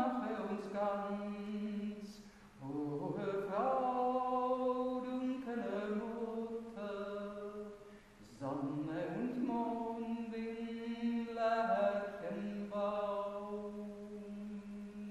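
A woman singing a Marian hymn solo and unaccompanied, in long held notes, with two short breaths between phrases, each new phrase opening on a rising note.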